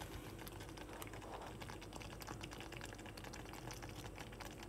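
Risotto bubbling in a small saucepan on the heat: a faint, rapid patter of small pops as bubbles burst through the food.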